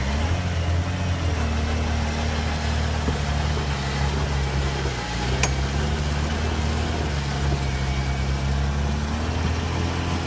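Jeep Cherokee XJ engine revved up and held under load as the Jeep crawls up a steep rock climb. The revs ease off briefly about halfway, come back up, and drop away at the end. There is a single sharp knock about halfway through.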